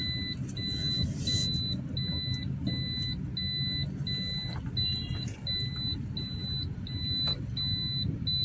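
Car warning buzzer beeping steadily and evenly, about two beeps a second, over the low hum of the engine running, heard from inside the cabin.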